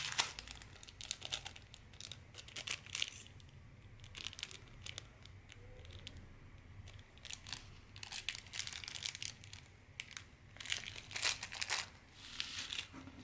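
Small clear plastic bag crinkling as it is handled, in short irregular bursts of rustling.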